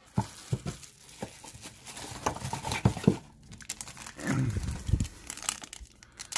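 Foil trading-card packs crinkling as they are handled, with scattered short crackles.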